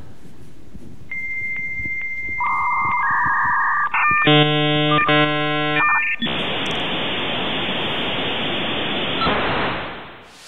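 Dial-up modem connecting over a telephone line: a steady high answer tone with faint regular clicks, then short warbling tones, then several tones sounding together for about two seconds, then a long hiss of static that fades away near the end.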